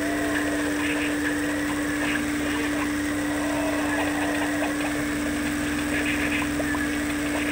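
RC car driving along a paved path, heard from its onboard camera: a steady motor hum with the rumble of the tyres and small clicks and rattles from the chassis.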